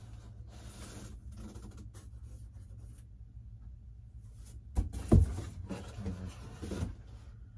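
Long cardboard shipping box being handled: cardboard rubbing and scraping as the lid is worked loose, with a few sharp knocks about five seconds in. A steady low hum runs underneath.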